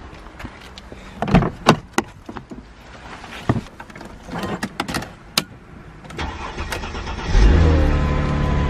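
Car engine starting about seven seconds in and settling into a steady idle, after a run of scattered clicks and knocks.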